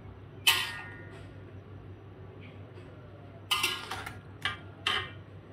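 A metal spatula knocking and scraping against a metal wok while stirring mushrooms: one clink about half a second in, then a quick run of four near the end, each with a short metallic ring.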